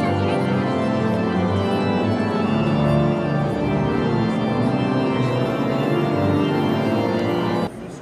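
Organ music in sustained, overlapping chords, cutting off suddenly near the end.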